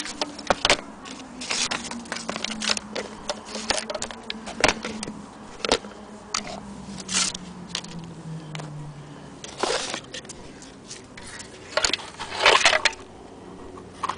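Vintage cameras and small objects being handled and moved by hand: irregular clicks, knocks and rustling, loudest about ten seconds in and again near the end. Under them a faint low hum slowly drops in pitch and fades out about nine seconds in.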